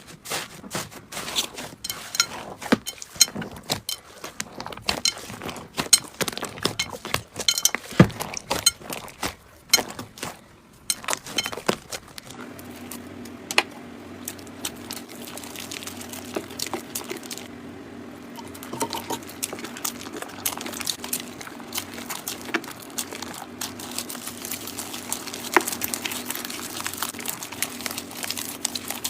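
Slime being handled, squeezed and poked, giving many quick clicks and pops. About twelve seconds in, the clicks thin out and a steady low hum runs beneath them.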